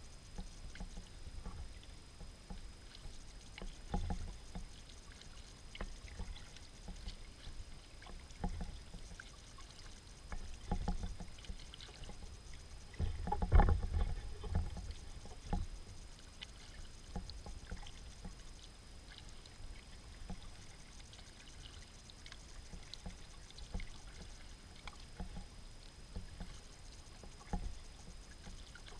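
Kayak paddling on calm water: the paddle dipping and pulling every couple of seconds, with splashes, drips and small knocks, the strongest strokes about halfway through.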